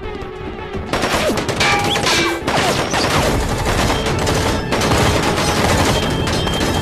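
Rapid bursts of gunfire, starting about a second in, over a dramatic action-music score.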